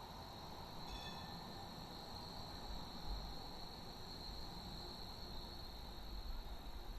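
A tram passing close alongside on the rails: a faint steady high-pitched whine over low rumble. A few faint brief tones sound about a second in, and the low rumble grows toward the end.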